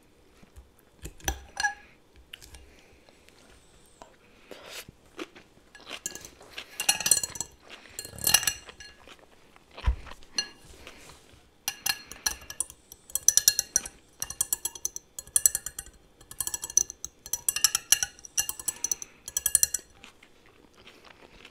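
Cutlery clinking and scraping against a plate: scattered taps at first, a dull knock about halfway, then quick runs of taps and scrapes with a faint ringing through the second half.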